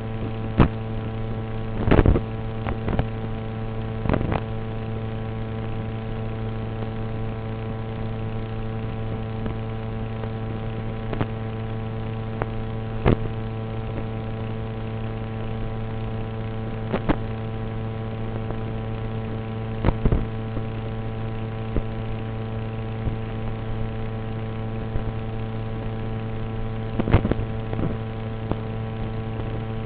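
A steady, unchanging hum with many overtones, broken every few seconds by sharp clicks or pops.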